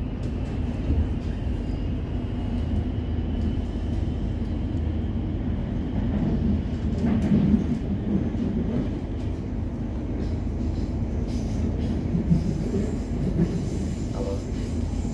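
Suburban electric train running, heard from inside the carriage: a steady rumble of wheels on track with scattered clicks, and a faint whine that rises slowly over the first few seconds.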